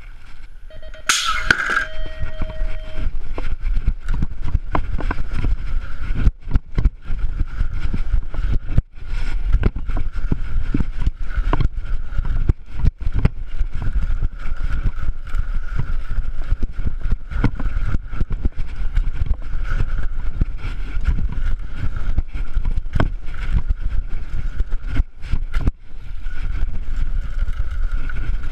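BMX bike ridden hard down a dirt track, heard from a camera on the bike: wind buffeting the microphone, tyres on packed dirt and the bike rattling with frequent sharp knocks over the bumps. About a second in there is a loud sharp clatter with a short steady tone.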